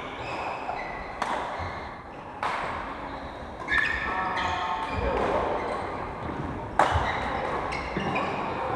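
Badminton rackets striking shuttlecocks: four sharp smacks at uneven intervals, echoing in a large hall. Short high squeaks of court shoes on the wooden floor come in between the strikes.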